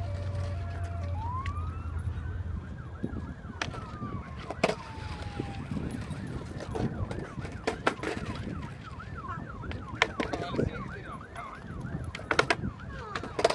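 An emergency vehicle siren sounds, first as one slow wail that rises and falls, then as a fast up-and-down yelp from about nine seconds in. Sharp clacks of a skateboard on concrete come through it now and then, with a low rolling rumble of wheels at the start.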